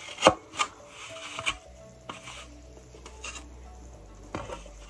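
A black cloth handled and dipped in a bowl of tuna liquid: rubbing and a few sharp knocks in the first second and a half, and another knock near the end.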